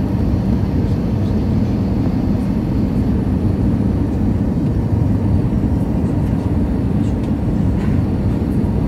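Airliner cabin noise during the descent to land: a steady, deep drone of engines and airflow heard from a passenger seat, even throughout.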